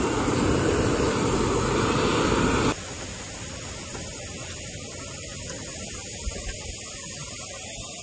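Handheld butane flame-gun torch blowing a steady jet of flame onto charcoal to light it, cutting off abruptly about three seconds in. A much quieter steady hiss follows.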